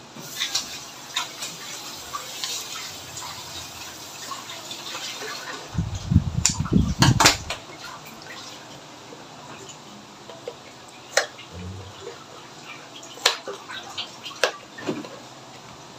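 Thick cream pouring and dripping from a carton onto chopped fruit, with the carton being handled and squeezed. A loud burst of low knocks and handling noise comes about six to seven seconds in, and a few sharp clicks follow near the end.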